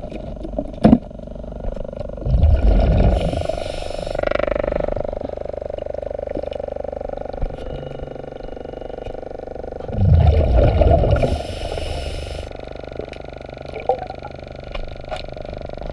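A diver breathing through a regulator underwater: two exhalations as rumbling bursts of bubbles, about 2 s and 10 s in, each followed by the hiss of an inhalation, over a steady hum. A sharp knock about a second in.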